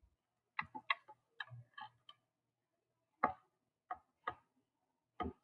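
Dry-erase marker writing on a small whiteboard: faint short taps and scratchy strokes, a quick run of them in the first two seconds, then four more spaced out.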